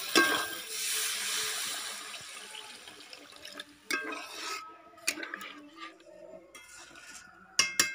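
Water poured into a hot karahi of oily fried spice paste and potatoes, rushing and hissing as it goes in. The hiss fades away over about three seconds, and a few light knocks and clicks follow.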